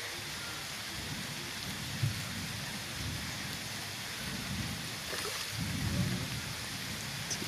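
Heavy rain falling steadily, an even hiss, with low rumbles swelling and fading several times, strongest about six seconds in.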